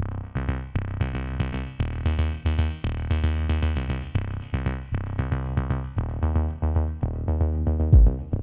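Electronic background music: a pulsing synth bass line on a steady drum-machine beat, with a sharper drum hit and hiss coming in near the end.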